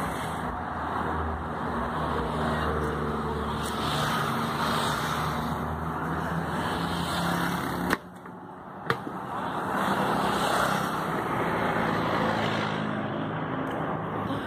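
Street traffic: vehicle engines running and passing with a steady hum. About eight seconds in it drops out briefly, with two sharp clicks.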